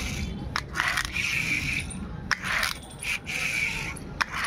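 Small plastic toy car handled up close: its wheels whir and scrape in repeated short strokes, about one a second, with light plastic clicks between them.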